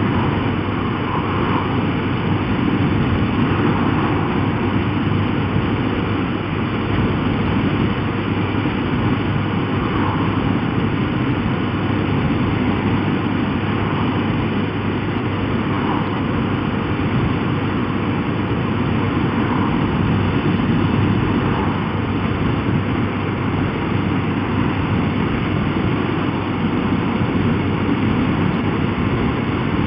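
Steady wind rush with motorcycle engine and road noise, picked up by a helmet-mounted camera on a bike cruising at road speed.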